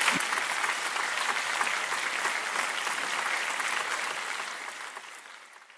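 Theatre audience applauding, a dense steady clapping that fades away near the end.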